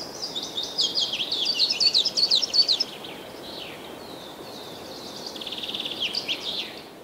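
Songbird singing a fast, jumbled run of high chirps for about three seconds, then fainter scattered notes and a short buzzy trill near the end, over a steady rushing background noise.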